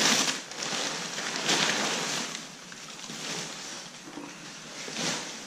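Plastic bags and crinkle-cut paper packing rustling and crinkling as they are pulled out of a cardboard box, loudest at the start, about a second and a half in, and again near the end.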